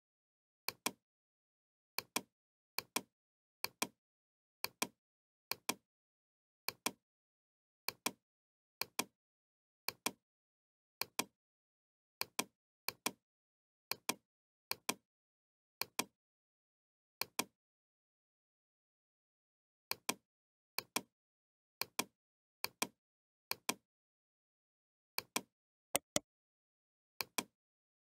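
Computer mouse clicking: sharp click pairs, each a quick press and release, about one a second, with nothing heard between them and one pause of about two seconds past the middle. Each click places a point of a spline being drawn.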